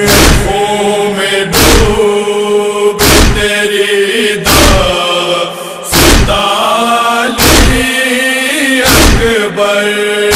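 A male voice chanting a noha, an Urdu mourning lament, in long drawn-out notes, with a heavy matam (chest-beating) thud keeping time about every one and a half seconds.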